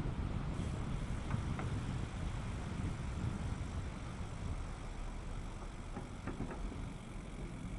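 Steady low rumble of a bicycle ride: wind buffeting the microphone and tyres rolling over the bridge deck, with a few faint clicks about a second in and again near the end.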